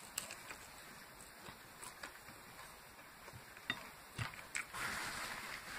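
Faint chewing and mouth sounds of a person eating breaded fried chicken, with scattered small clicks and a soft noisy rush near the end.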